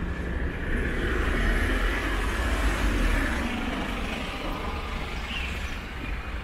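A van driving past close by on the street, its engine and tyre noise swelling over about two seconds and then fading, over a steady low rumble of city traffic.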